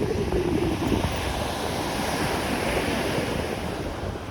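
Ocean surf washing onto the beach, swelling about halfway through, with wind rumbling on the microphone.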